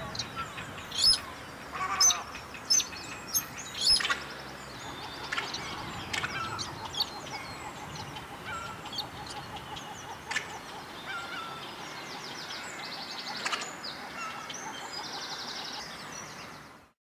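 White-browed crake calling: several loud, sharp calls in the first four seconds, then softer rapid chattering trills and short notes.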